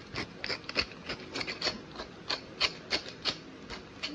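Pepper mill grinding black peppercorns, a run of crunchy, rasping clicks at about three a second.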